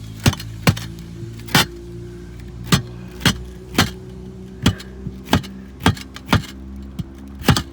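A rubber mallet or the soft end of a hammer tapping a replacement roof tile to seat it, about a dozen sharp knocks at irregular intervals of around half a second.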